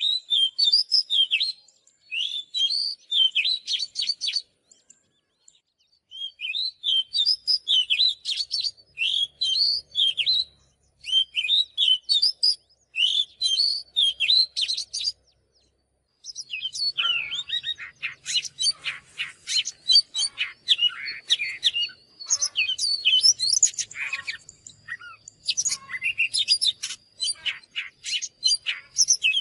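Oriental magpie-robin singing: phrases of quick whistled and chattering notes broken by short pauses, the song becoming denser and more continuous about halfway through.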